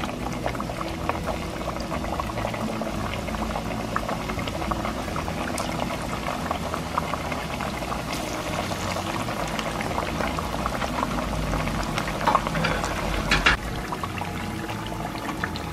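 Smashed green-plantain patacones sizzling in hot oil at medium heat during their second fry: a steady sizzle with a dense crackle. A couple of louder pops come near the end.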